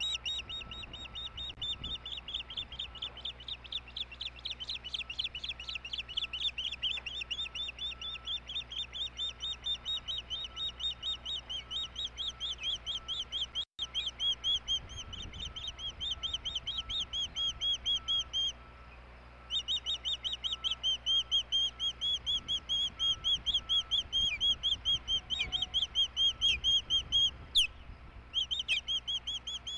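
Osprey calling from the nest: a fast, unbroken series of high, piping chirps, about five a second, with one short pause about two-thirds of the way through.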